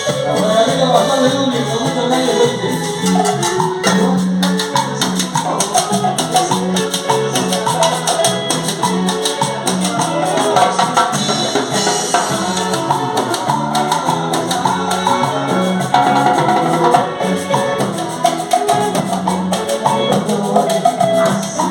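Salsa music playing continuously, with a repeating bass line and shaker percussion.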